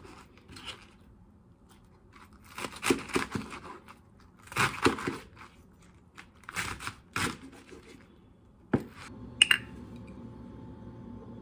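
Chef's knife slicing through napa cabbage leaves on a cutting board, in three crisp, crunchy runs of quick cuts. Near the end comes a sharp click and a brief ringing clink, over a steady low hum.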